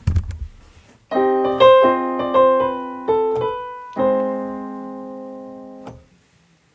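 Digital piano playing a short phrase of about seven chords, the last one held for about two seconds and then released. The phrase is an example of the chord that escapes death: instead of the expected closing chord, it turns to a hopeful one. A brief knock is heard just before the playing.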